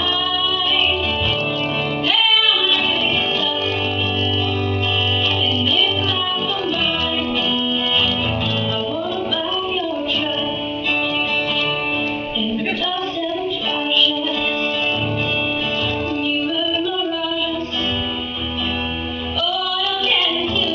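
A female voice singing a song, accompanied by an acoustic guitar, performed live.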